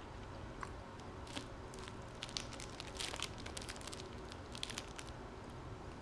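Clear plastic food wrapper crinkling and crackling as a wrapped snack is handled and bitten into, in quiet, scattered crackles.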